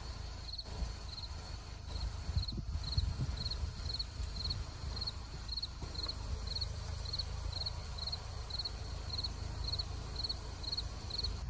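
Audi S8 warning chime: short high-pitched electronic beeps repeating steadily at about three every two seconds, over a low wind rumble. The car is signalling a fault while it refuses to start.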